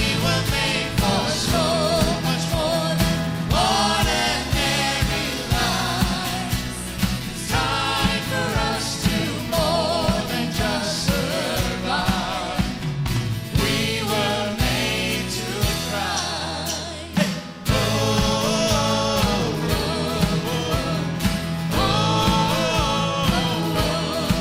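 Worship song played by a band, with drums and bass under sung voices that waver in pitch. The bass drops out briefly about two-thirds of the way through, then the full band comes back in.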